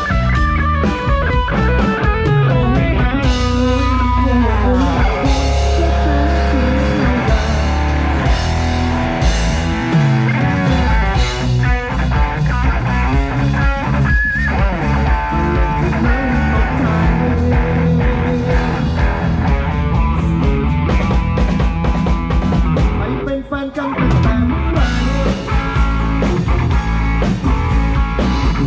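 Band playing rock music at a sound check: guitar over bass and drum kit, loud and continuous, with a brief drop about 23 seconds in.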